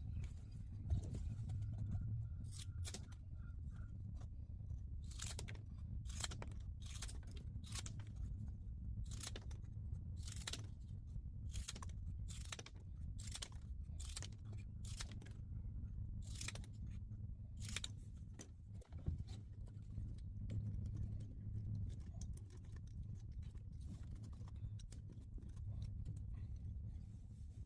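A string of short, crisp snipping or scraping sounds, irregular and roughly one a second, over a steady low hum.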